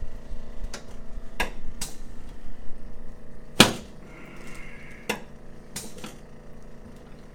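Sharp cracks and knocks of a chiropractic adjustment on a patient lying face down on the table: about half a dozen short pops, the loudest about three and a half seconds in.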